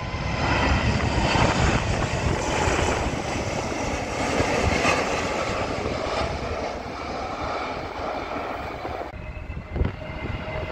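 Ryanair Boeing 737 MAX jet passing low overhead on final approach, its engines making a loud, steady rushing noise that swells over the first couple of seconds. About nine seconds in the jet noise cuts off abruptly, leaving quieter wind noise.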